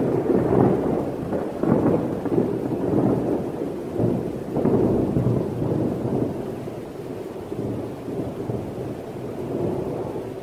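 Thunder rumbling in several rolling swells, with rain underneath, fading away near the end.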